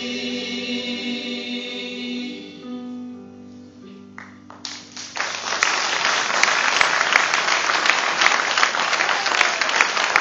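A choir of children and adults holds a final sung chord that fades out about three seconds in. Then an audience breaks into loud applause about five seconds in, and the applause carries on.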